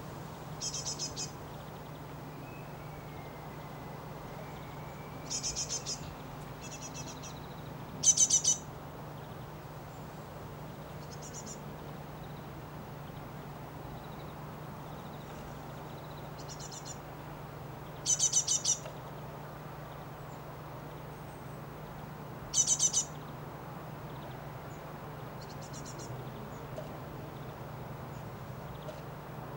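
Great tits at a nest box giving about nine short bursts of rapid, high chirping notes, each about half a second long, the loudest around a quarter, two thirds and three quarters of the way through. A steady low hum runs underneath.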